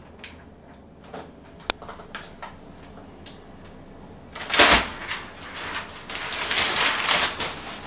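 Handling noise from the case's peeled-off plastic protective film: a few small clicks, a knock about halfway through, then a couple of seconds of crinkling and rustling.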